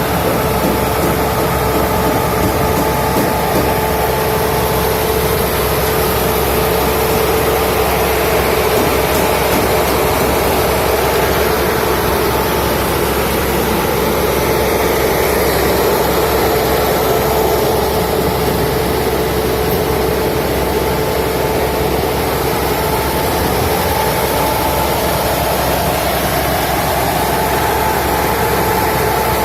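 Machinery running steadily and unchanging: a constant hum with one held mid-pitched tone over a steady wide rumble.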